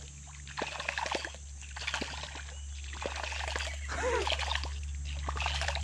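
Water splashing and plopping at the surface around a topwater lure being worked for catfish, with irregular short splashes throughout. A brief vocal exclamation comes about four seconds in.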